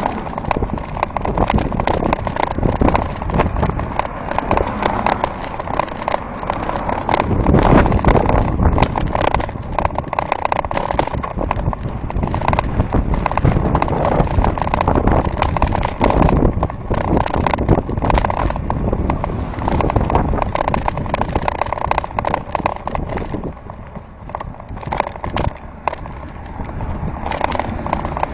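A bicycle being ridden along a tarmac road, heard through a camera mounted on the bike: a steady rumbling rush of rolling and wind noise, broken by many small rattles, knocks and crackles from the mount and the bike over bumps. It eases off for a few seconds near the end.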